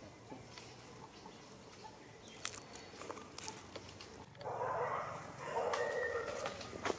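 Macaques calling: two rough, noisy calls of about a second each, a little past halfway, among scattered sharp clicks and ticks.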